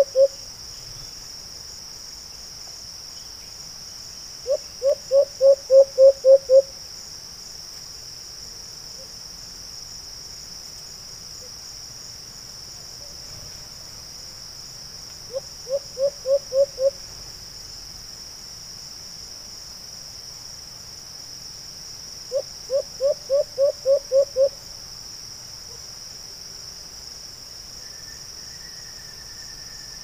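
White-eared brown dove giving its hooting call: series of low hoots, about four a second, each series growing louder toward its end, three times over with long pauses between. A steady high insect drone runs underneath.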